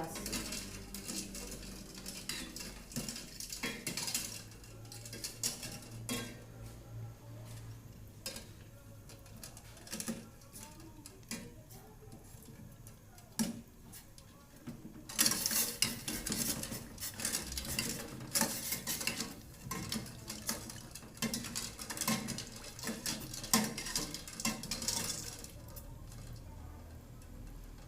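A spoon stirring water and herbs in a cooking pot, with irregular clinks and scrapes against the pot. The stirring gets busier and louder about halfway through. The water is heating toward the boil.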